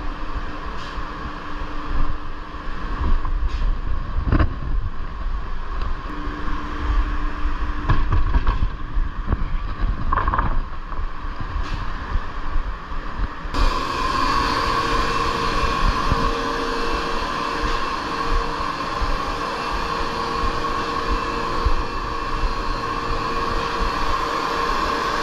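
Steady hum and rumble of woodworking shop machinery, with a few knocks and handling bumps as wood panels are moved. About halfway through the sound changes abruptly to a brighter, steadier machine hum with a held tone.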